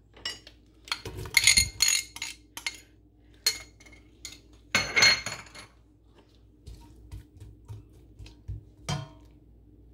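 Clinks and knocks in a stainless steel pot as sliced onions are tipped in from a ceramic bowl and then stirred in the oil with a wooden spatula. The knocks ring briefly. They cluster in the first few seconds, with one loud clink about five seconds in and lighter taps after it.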